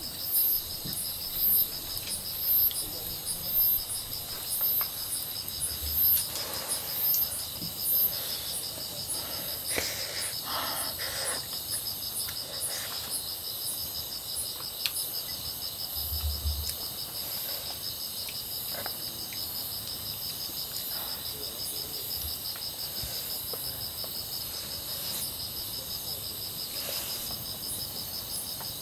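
Night insects, crickets among them, chirping: a steady rapid trill throughout, with a louder high chirp repeating about once a second over the first eight seconds or so. A few faint clinks of a spoon against a metal camping pot come later on.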